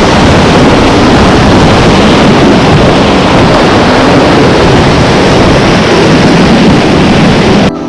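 Loud, steady rushing noise of a raft running a river rapid, whitewater mixed with wind on the microphone; it cuts off suddenly near the end.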